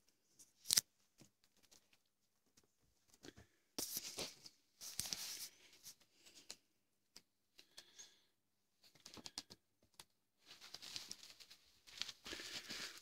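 Paper crinkling and tearing in irregular bursts as a cat bites and claws at a paper packet.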